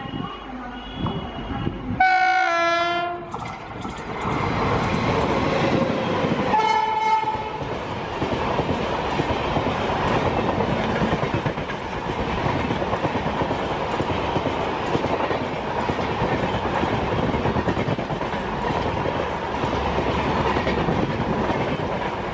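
WAP-7 electric locomotive sounding its horn twice, a longer blast falling slightly in pitch about two seconds in and a shorter one near seven seconds. The LHB passenger coaches then rush past close by, with steady wheel-on-rail rumble and clatter.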